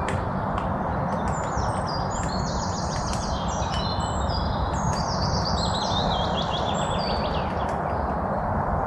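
Songbirds chirping, with quick runs of repeated high notes and several calls overlapping, over a steady rushing background noise. The birdsong fades out a little before the end.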